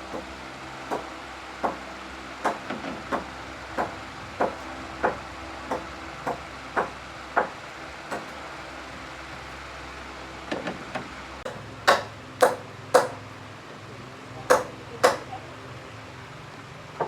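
Repeated hammer blows, about one and a half a second and evenly paced, over a faint steady hum. After a short pause there are a few louder, sharper strikes near the end.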